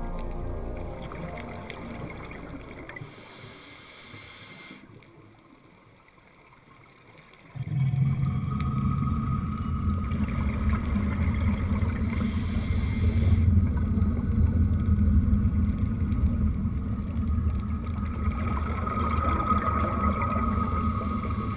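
Background music fades away over the first few seconds. Then, about a third of the way in, a steady muffled low rumble with a faint whine cuts in suddenly: underwater noise picked up by the dive camera in its housing.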